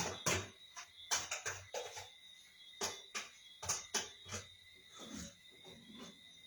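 Kitchen utensils clinking and tapping against a cooking pot: a series of sharp, irregular clicks, busiest in the first few seconds and thinning out toward the end, over a faint steady high whine.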